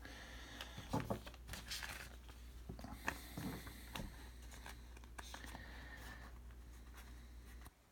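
Thick-stock Topps Finest Star Wars trading cards being flipped through by hand: faint clicks and soft slides of card against card, over a low steady hum that cuts off near the end.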